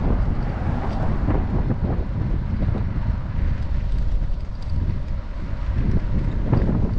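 Wind buffeting an action camera's microphone on a moving bicycle: a loud, uneven, low rumble of gusts, with passing road noise mixed in.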